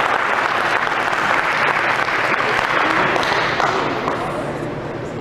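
Spectators clapping, a dense patter of applause that dies down near the end.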